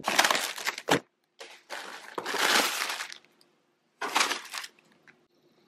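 Blue plastic packaging crinkling and rustling as it is handled and pulled out of a cardboard shipping box, in three bursts, the longest in the middle.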